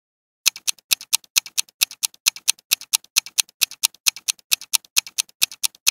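Clock-ticking countdown sound effect: a fast, even tick-tock, alternating louder and softer ticks, starting about half a second in. It marks the time left to answer a quiz question.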